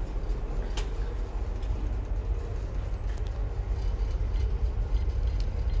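Steady low rumble inside a ferry as it leaves port, from the ship's engines and machinery, with a light click about a second in.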